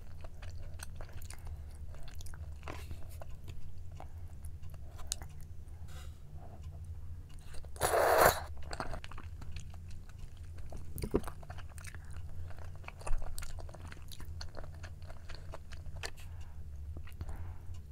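Close-miked eating of braised chicken with glass noodles: soft chewing and small mouth clicks, with one loud, brief slurp of saucy glass noodles about eight seconds in and a sharp click a few seconds later. A low steady hum sits underneath.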